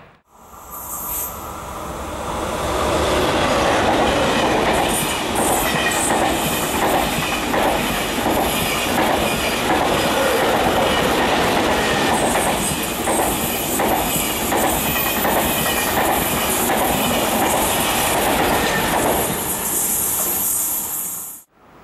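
TGV high-speed train passing close by at speed: a loud steady rush of wheels on rail and air, with a rapid rhythmic clatter of the wheels over the rail joints and a high hiss. It builds over the first few seconds and dies away near the end as the last cars go by.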